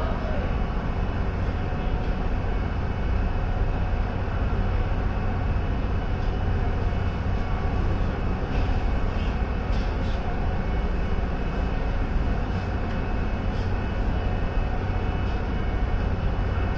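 Hakone pirate-ship cruise boat's engine running steadily under way: a constant low drone beneath an even rushing noise.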